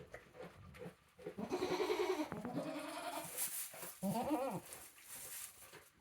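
Goats bleating: one longer call about a second and a half in, then a shorter one about four seconds in.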